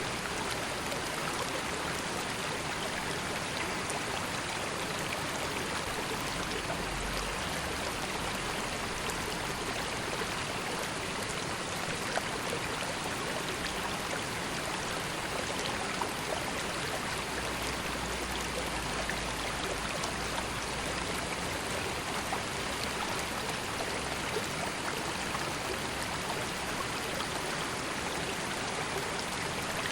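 A calm river flowing: a steady rush of running water, with a few small ticks and splashes now and then.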